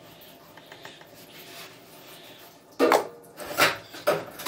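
A metal spoon knocking and clattering against a stainless steel bowl, about three sharp strikes with a short ring, starting near the end after a quiet stretch.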